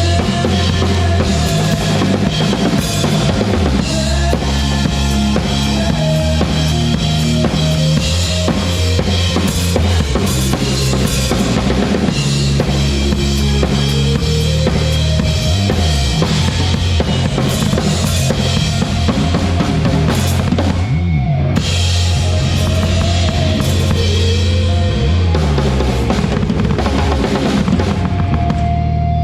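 A band playing a song live, with the drum kit up front: kick drum and snare driving the beat over a bass line and sustained chords. The cymbals and high end drop out for about a second roughly two-thirds of the way through.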